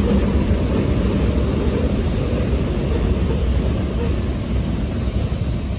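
Freight train's covered hopper cars rolling past on the rails: a steady low rumble of wheels on track.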